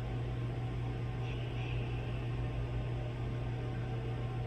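Steady low hum under a faint hiss, with no distinct event; about a second in there is a brief faint higher sound.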